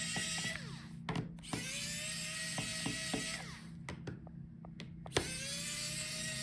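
Small electric screwdriver backing out the laptop's bottom-case screws: its motor spins up with a rising whine and runs for about two seconds at a time, with clicks as the bit is set on each screw. One run ends just after the start, another runs in the middle, and a third starts near the end.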